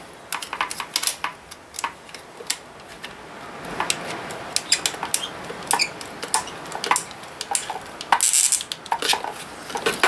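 Small screwdriver clicking and tapping irregularly against the terminal screws and wires of a plastic mains socket faceplate as the last wire is tightened in. A louder, brief scrape comes about eight seconds in.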